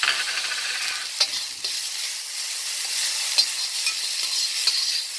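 Bean sprouts, onions, peas and carrots sizzling in hot oil in a steel wok, loudest right at the start as the mixed vegetables go in. A metal spatula scrapes and knocks against the wok several times as they are stir-fried.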